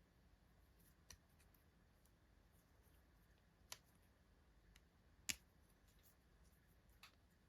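Near silence broken by a few faint, sharp clicks and snips of doll packaging being handled and opened, the loudest about five seconds in.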